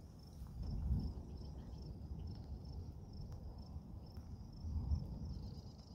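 Distant thunder rumbling low, swelling about a second in and again near the end. A high insect chirp repeats steadily about three times a second underneath.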